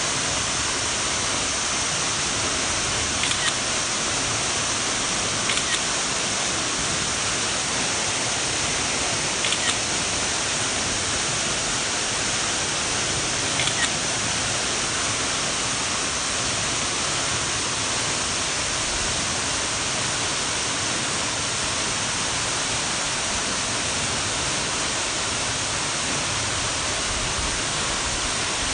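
Waterfall rushing: a steady, even hiss of falling water. Four brief high-pitched sounds stand out above it during the first half.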